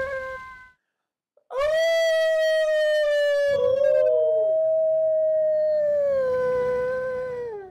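Wolf howling: one long howl that rises sharply as it starts, holds a steady pitch and falls away at the end, with a second howl joining about two seconds in and gliding down.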